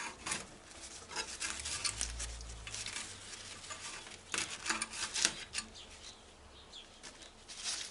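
Tobacco leaves rustling and rubbing as they are pulled through a stem removal tool to strip the leaf from the stem, in short irregular bursts, busiest about four to five seconds in.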